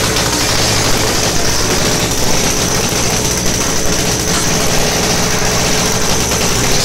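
A small engine running steadily at idle, as on a motorised Krampus cart, under a dense, even wash of noise.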